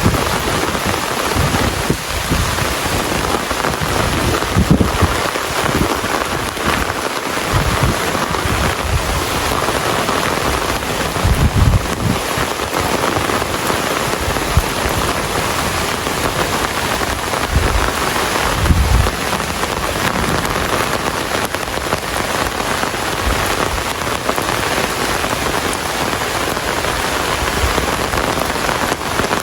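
Steady rain falling, a dense, even hiss, with brief low rumbles now and then.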